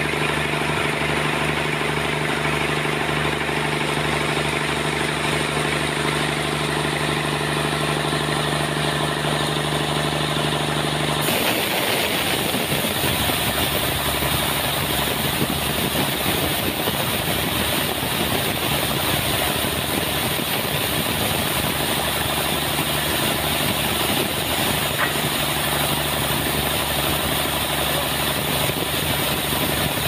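Sawmill machinery running steadily with a constant mechanical hum. About eleven seconds in the sound changes abruptly to a rougher, noisier mix, with the hum carrying on underneath.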